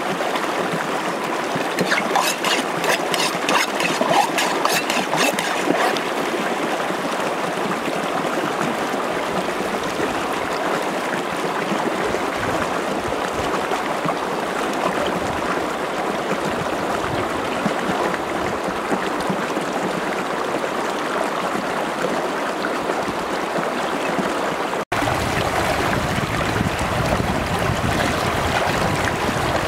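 Shallow stream running steadily over rocks, with water splashing as a whole raw chicken is swished and rinsed in the current; a quick run of splashes comes between about two and five seconds in.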